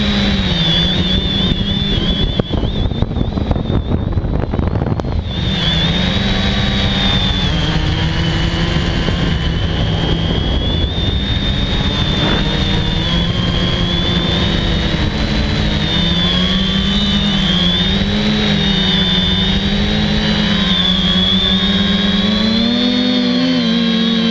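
FPV quadcopter's electric motors and propellers whining, heard from the onboard camera, the pitch wavering up and down with throttle. About two seconds in, the whine gives way for a few seconds to rough wind buffeting as the craft drops, then the steady wavering whine returns.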